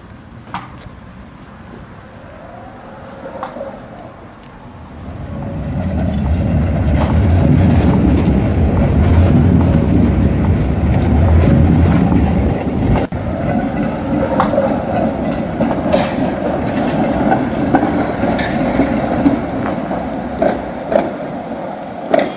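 Tram running past on rails: a low rumble of the wheels swells to its loudest about a third of the way through and holds, with sharp clicks as the wheels cross rail joints and two short rising-and-falling whines.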